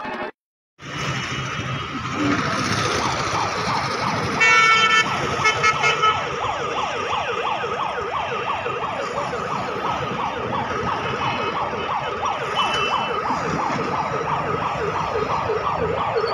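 Busy road traffic with vehicle horns honking. One long, loud honk comes about four and a half seconds in, with short beeps soon after and again later.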